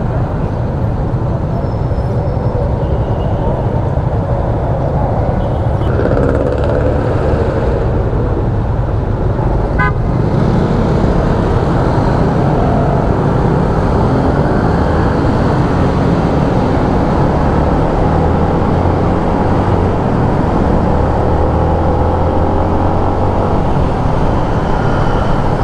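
Yamaha Sniper 150 motorcycle riding along a road, heard from a mount on the bike: a steady engine and wind rumble over the microphone, with a horn tooting at times among the other riders.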